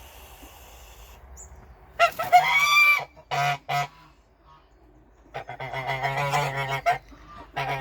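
Embden geese honking: one loud drawn-out honk about two seconds in, two short honks just after, then a fast run of harsh honks from about five and a half seconds, a gander guarding his nesting goose.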